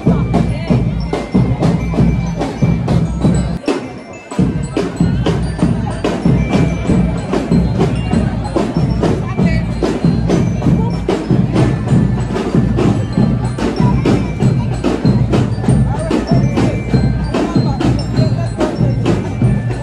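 Upbeat dance music with a steady clicking percussion beat and ringing pitched notes over a full low end. It drops out for a moment about four seconds in.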